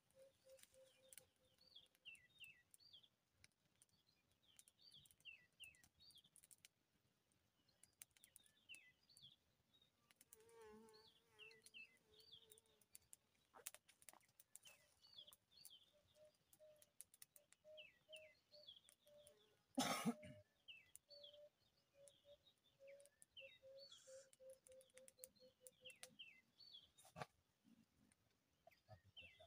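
Faint birdsong: small birds chirping throughout, with runs of a low note repeated quickly and evenly. A single cough about twenty seconds in is the loudest sound.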